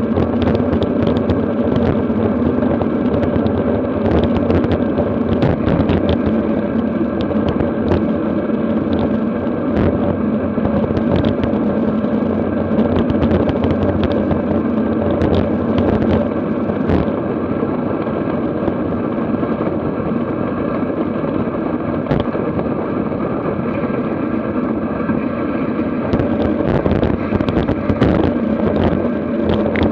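Wind rushing over the microphone of a camera riding on a road bike at about 50 km/h, mixed with tyre noise on asphalt. Scattered clicks and knocks run through it.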